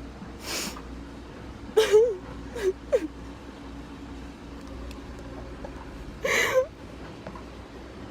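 A person crying: short whimpering sobs and gasping breaths, a cluster of them about two to three seconds in and another near the end, over a steady low hum.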